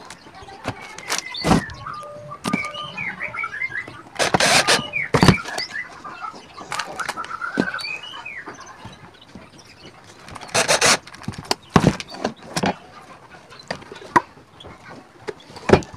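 Cordless drill driving screws through a metal drawer slide into a wooden drawer box in short bursts, with knocks and clicks from handling the drawer and slide. Small birds chirp in the background.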